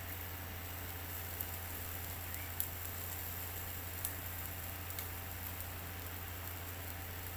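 Beef satay sizzling over charcoal in a small metal grill, a steady hiss broken by a few sharp pops, over a steady low hum.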